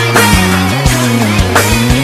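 Loud live band music in a heavy rock style, with regular drum hits and low bass notes that bend in pitch.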